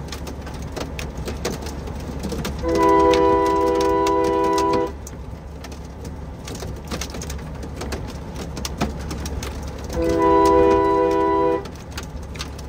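Semi truck's multi-tone air horn blown twice, a long chord of about two seconds and then one of about a second and a half, honked at traffic stopped in the lanes, over a steady low rumble.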